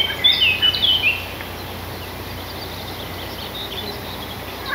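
A songbird singing a quick run of short, clear notes that step downward in pitch, ending about a second in; after that only faint chirps over a low steady background.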